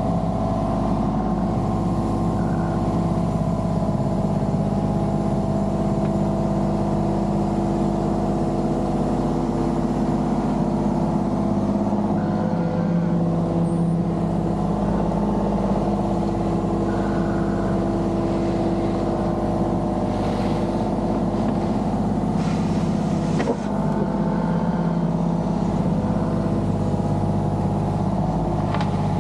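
Diesel engine of a compact construction machine running at a steady speed, its pitch shifting slightly now and then.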